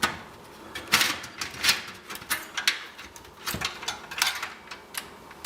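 Irregular plastic clicks, knocks and scraping as a multi-card reader is worked loose and slid out of the front drive bay of an HP Z420 workstation case, its cord still attached.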